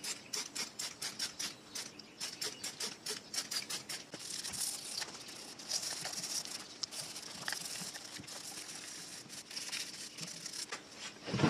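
Hand tool scrubbing and scraping grime off the cast underside of a Pfaff 1245 industrial sewing machine. It starts as quick scratchy strokes, about four a second, and turns into denser continuous scrubbing about four seconds in, with a louder scrape right at the end.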